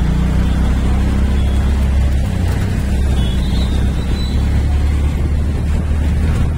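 Engine and road noise heard from a moving vehicle, a steady loud low rumble that does not let up.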